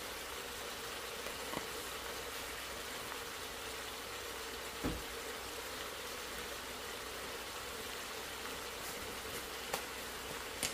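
Pot of seasoned oxtails sizzling on the stove, a steady even hiss, with a few light knocks of a utensil or pot now and then.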